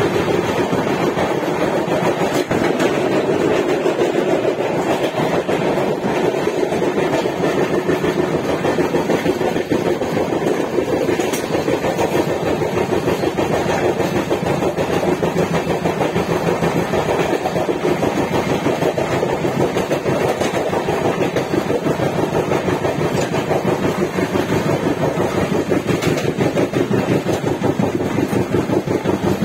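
Passenger train running steadily along the line, heard from inside the moving coach: the continuous running noise of wheels on rails.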